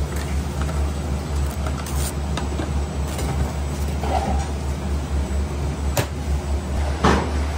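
Steady low rumble of commercial kitchen machinery, with a few short rustles and taps from the cling-film-covered steel tray being handled, the sharpest about six seconds in and another about a second later.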